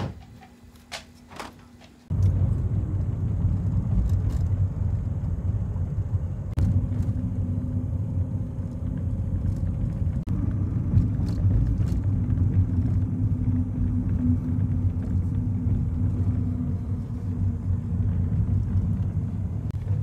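Steady low rumble of engine and road noise inside a small car's cabin while it drives along. It starts abruptly about two seconds in, after a few faint clicks.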